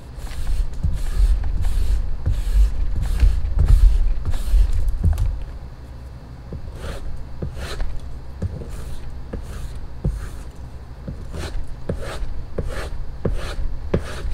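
Rubbing on a strop charged with green polishing compound. For the first five seconds or so there is heavier, continuous scrubbing. Then comes a run of light, separate swishing strokes, a little more than one a second, as a blade is drawn across the strop.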